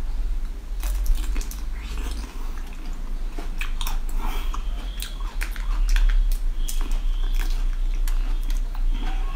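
Close-miked biting and chewing of a tomato-shaped jelly candy: wet, squishy clicks and crackles in an uneven run, over a steady low hum.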